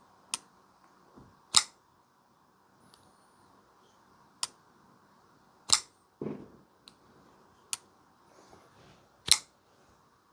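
Vosteed Bellamy folding knife flipped open by its front flipper and closed again, three times: each opening ends in a loud, sharp snap as the blade locks out, with lighter clicks in between as it is closed.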